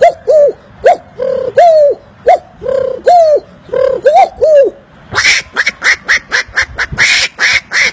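A man imitating bird calls with his mouth. First comes a series of short, pitched calls that rise and fall, about two a second. About five seconds in he switches to a faster run of harsh, duck-like quacks, about three a second.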